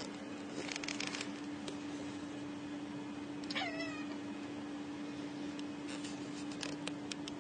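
A tabby cat watching a bird through a window gives one short meow that falls in pitch about three and a half seconds in. There is brief clicking about a second in and again near the end.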